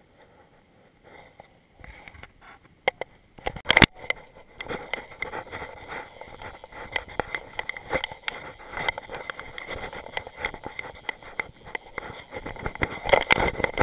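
Clothing scraping and rustling against the camera as the angler moves over river stones, with a few sharp knocks about four seconds in and uneven crackling after.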